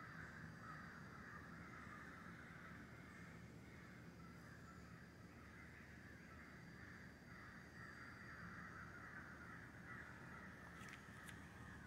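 Faint, steady chorus of calling animals, a continuous mid-pitched drone that runs on without breaks.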